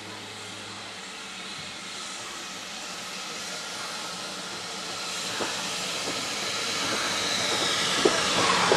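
Steam locomotives hissing steam, the hiss growing steadily louder as the engine draws alongside another steam locomotive, with a few light knocks near the end.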